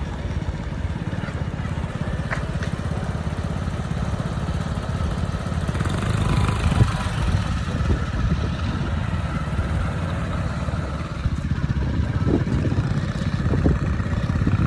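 A vehicle engine running steadily while driving slowly, a continuous low rumble.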